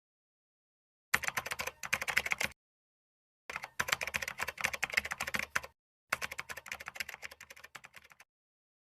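Rapid keyboard typing clicks in three bursts, about a second apart, each cut off into dead silence, the third fading away.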